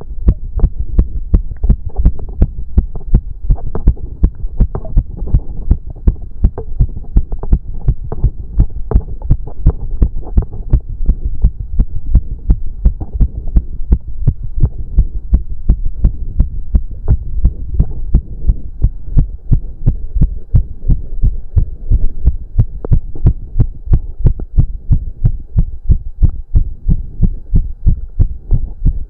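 A man's heart beating fast and hard during cardio exercise, picked up close to the chest as an even run of low thumps. Heavy breathing rises and falls beneath the beats.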